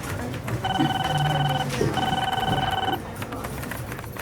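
Office telephone ringing with a pulsed electronic trill: two rings of about a second each, a short pause apart, over steady office background noise.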